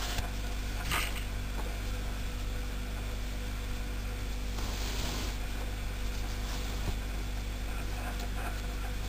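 Pink yarn drawn through a crocheted square with a tapestry needle: soft rustling about a second in and again around five seconds, over a steady low electrical hum.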